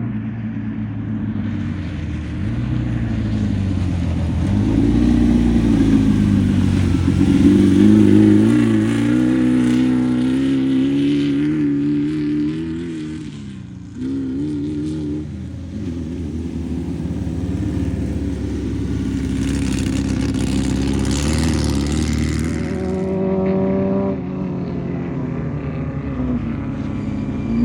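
Air-cooled VW-powered off-road race car engines revving, their pitch rising and falling with throttle and gear changes. Loudest about eight seconds in, the sound drops away shortly before the middle and then comes back suddenly, holding fairly steady after that.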